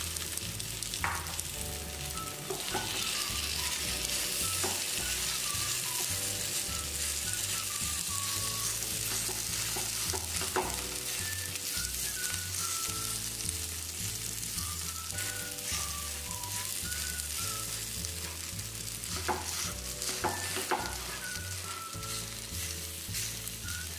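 Grated potato sizzling steadily in hot oil in a nonstick frying pan, with a spoon clicking against the pan a few times as the shreds are pressed and spread. Soft background music with a low, regular beat plays underneath.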